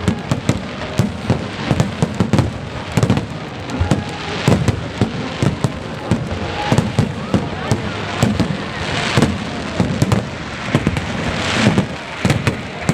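Fireworks display going off: a rapid, irregular string of bangs and crackles with no pause, voices faintly beneath.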